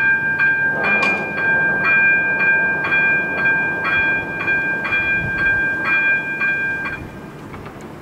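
Electric level-crossing bell (AŽD ZV-02) ringing about two strokes a second while the barrier arms lower, warning of an approaching train; it stops abruptly about seven seconds in, once the barriers are down.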